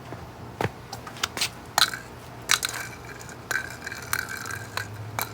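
Old incandescent light bulb giving a string of sharp, irregular clicks and cracks as it is forced, cracking inside, with loose broken bits rattling in the glass.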